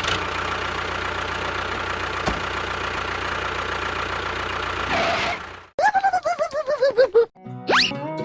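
A tractor-type engine runs steadily for about five and a half seconds and then cuts off. It is followed by a quick run of falling, chirpy cartoon-style tones and one rising whistle near the end.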